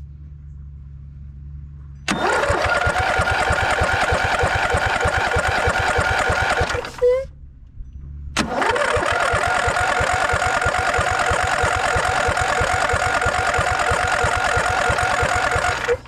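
Riding mower engine being cranked by its electric starter without catching, in two runs of about five and seven and a half seconds with a short pause between. Fuel is not being drawn up through the fuel filter, so the engine is starved of fuel; a failing vacuum fuel pump is suspected.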